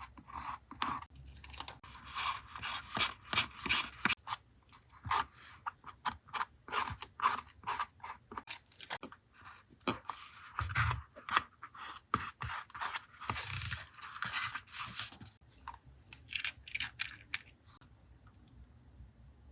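Paper crinkling and rustling as it is handled, in dense irregular crackles that stop about eighteen seconds in.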